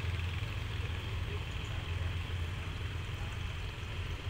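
Diesel locomotive engine idling with a steady low hum.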